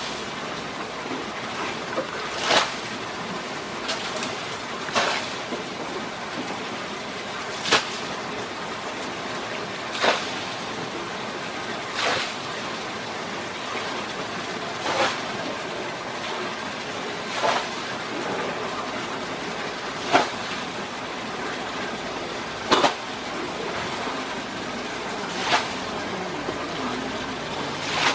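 Asian elephant rubbing its head against a boulder: a short scrape about every two and a half seconds over a steady rushing hiss.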